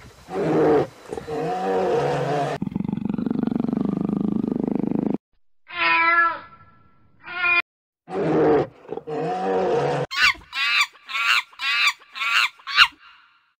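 A run of different animal calls cut one after another: deep pitched roar-like calls at the start and again in the middle, a buzzy noisy stretch, a short high warbling call, and a closing series of about eight short high-pitched cries.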